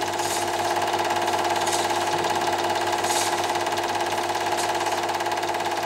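Cine film projector running: a steady, fast, even mechanical clatter from the film-advance mechanism over a constant motor hum.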